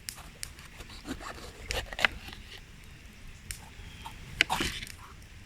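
Light clicks and rustling of things being handled, with two louder scrapes, about two seconds and four and a half seconds in.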